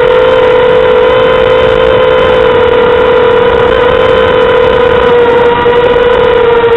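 Mini quadcopter's brushless motors and propellers whining steadily, a loud buzzing tone that holds a near-constant pitch with slight wavers.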